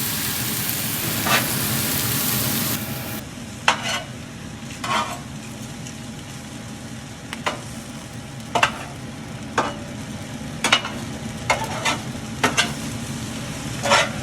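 Stir-fry vegetables sizzling in a pan while being stirred, the utensil clacking and scraping against the pan. The sizzle is loud for the first few seconds, drops suddenly, then goes on quieter with sharp clacks about every second.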